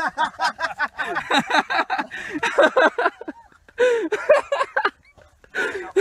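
People laughing and exclaiming, with quick rhythmic voice bursts over the first few seconds and more broken bursts later.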